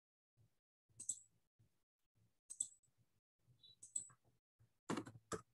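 Faint computer mouse and keyboard clicks: single clicks about a second apart, then a quick run of several near the end.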